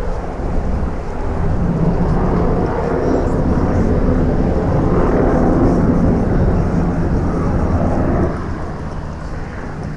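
A low, steady engine drone that swells about a second and a half in and drops off again about eight seconds in.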